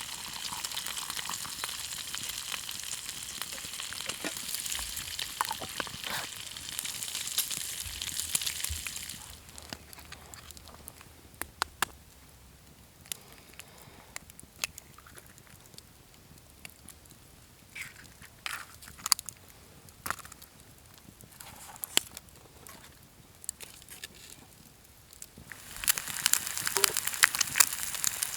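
Food sizzling in a frying pan over a campfire, with scattered pops. About nine seconds in the sizzle falls away, leaving only sparse crackles and clicks, and it comes back near the end.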